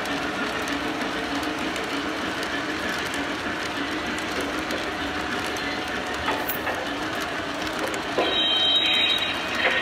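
O scale model passenger train rolling by on its track: a steady rumble and whir of wheels and motor. A high squeal joins about eight seconds in, louder for about a second and a half.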